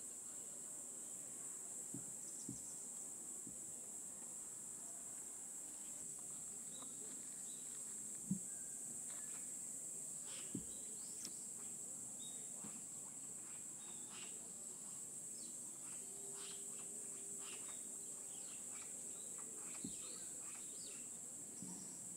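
Steady high-pitched chorus of insects such as crickets, with scattered faint clicks and ticks and a few soft thumps, the loudest about eight seconds in.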